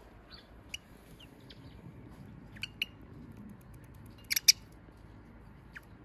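Short, sharp chirps from small birds, a rosy-faced lovebird and a wild laughingthrush: a few scattered single chirps, with the loudest, a quick double, about four and a half seconds in.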